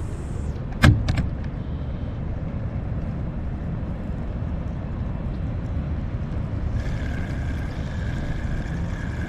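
Steady low outdoor rumble with a sharp click about a second in, followed by two smaller clicks. A steady high-pitched hum joins about two-thirds of the way through.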